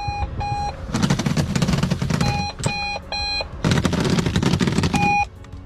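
Alarm clock going off: short high beeps in pairs and threes alternating with stretches of rapid rattling ringing.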